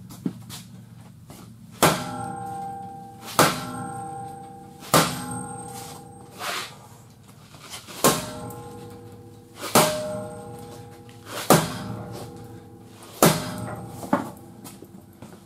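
Hammer blows on metal, seven strikes about a second and a half apart, each one ringing briefly afterward.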